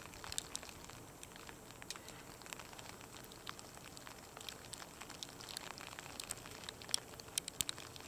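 Graupel pellets and wet snow falling, landing as faint, irregular ticks over a steady hiss.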